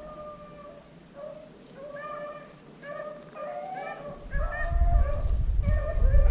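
A pack of beagles baying and yelping on a rabbit's track, several dogs giving voice at once in short, overlapping calls. A low rumble comes in about four seconds in and grows louder under the baying.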